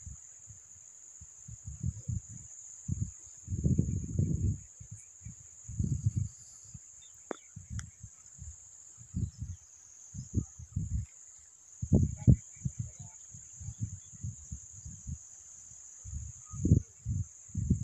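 Insects chirring steadily in one unbroken high-pitched drone, with irregular low rumbles and thuds every second or two on top.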